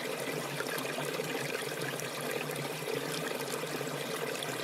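Small forest stream flowing steadily: a continuous trickling of water with many small splashes.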